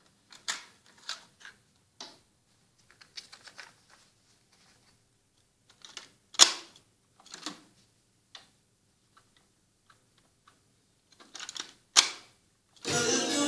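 Cassette deck transport buttons and mechanism operated by hand: a string of soft clicks and clunks, with two sharp, loud clicks about six and twelve seconds in. Music playback from the tape starts again just after the second loud click, near the end.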